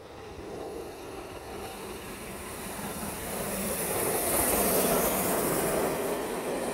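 LMS Jubilee Class 4-6-0 steam locomotive 45596 Bahamas running through a station with its coaches, a growing rumble and hiss that get steadily louder and peak with a strong hiss as the engine passes, about four to five seconds in.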